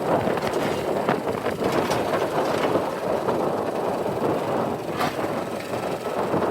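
JCB 3DX backhoe loader's diesel engine running under work, with a few sharp knocks, the clearest about five seconds in.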